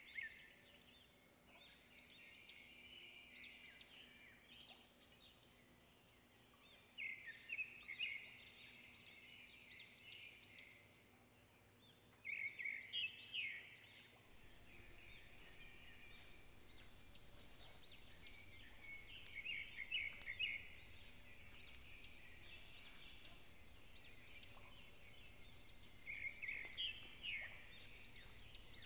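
Wild forest birds calling: bursts of rapid, high chirping calls come in clusters every few seconds.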